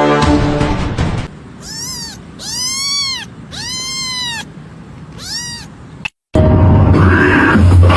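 A cat meowing four times, each meow rising and then falling in pitch, the middle two longer. Before the meows a loud low sound fades out, and after a short break a different loud sound starts.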